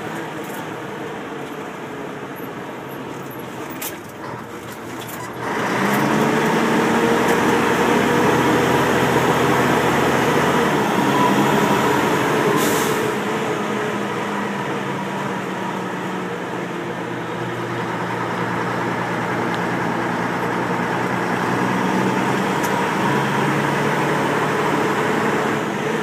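Mack CF fire truck's diesel engine pulling under load, getting much louder about five seconds in, its note dipping about halfway through and then climbing again. A short air hiss is heard near the middle.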